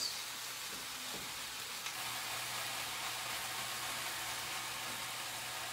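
Chicken and sliced onions sizzling steadily in a wok over high heat.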